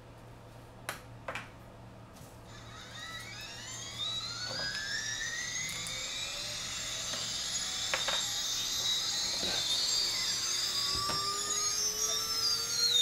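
T-Motor F60 Pro II 2500KV brushless drone motor spinning up on a test stand without a propeller, driven by a scripted throttle ramp for a KV measurement. After a couple of faint clicks, a high electric whine of several tones climbs steadily in pitch and grows gradually louder as the motor speeds up.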